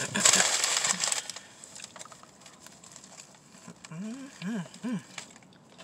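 Sandwich wrapper paper crinkling loudly for about a second, then quiet chewing of a buffalo chicken sub with three short rise-and-fall "mmm" hums of enjoyment about four to five seconds in.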